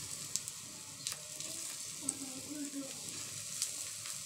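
Egg paratha batter sizzling steadily on a hot oiled iron tawa while a steel spoon spreads it, with a few light clicks of the spoon against the pan.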